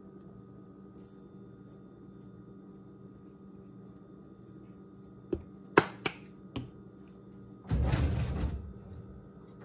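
A few sharp clicks and knocks of kitchen items being handled and set down, then a wooden kitchen drawer pulled open with metal utensils rattling for about a second near the end, over a faint steady hum.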